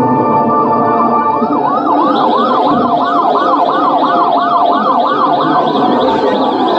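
Ambulance siren sound effect over sustained organ-like music. From about a second in it warbles fast up and down, about three cycles a second. Near the end it changes to a slow rising wail.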